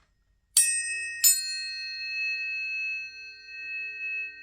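Two planetary tuning forks, for Juno and Vesta, struck one after the other about half a second apart, then ringing on together in steady high tones whose loudness wavers slightly.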